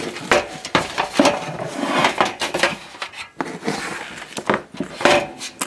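Irregular clanks and scrapes as the sheet-metal base of a two-plate electric hob is turned over and handled, with the loudest knock near the end.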